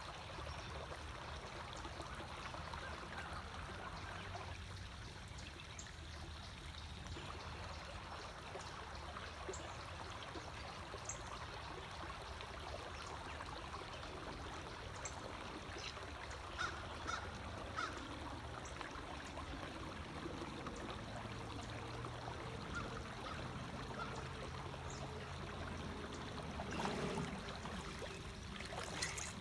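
Small creek's water trickling and running steadily over rocks, with a few short, high chirps in the middle.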